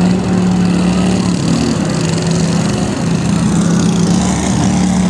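Riding lawn mower engines running steadily in a derby, a continuous engine drone whose pitch wavers slightly.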